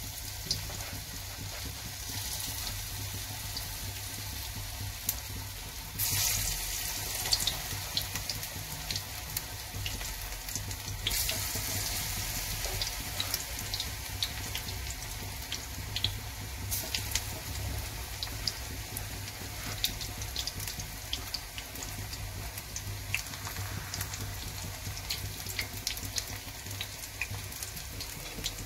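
Soya chunk and besan batter pakoras deep-frying in hot oil in a kadhai: a steady sizzle with many small crackling pops. The sizzle steps up about six seconds in and again around eleven seconds in, as more pakoras go into the oil.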